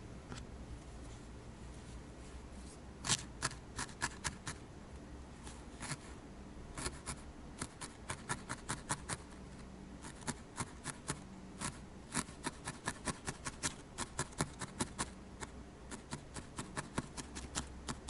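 A felting needle stabbed repeatedly into firm felted wool, each jab a crisp little crunch. The jabs come in quick runs of about four a second with short pauses, starting about three seconds in.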